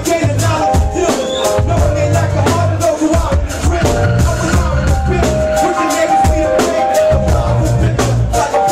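Live band playing a hip hop beat: a deep bass line, drum kit hits and sustained guitar chords, with a rapper's voice over the mix through the PA.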